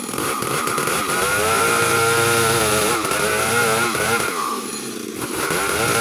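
Two-stroke chainsaw running at high revs as it rips a plank lengthwise from a log, its pitch wavering with the cutting load. The engine eases off briefly near the end, then picks back up.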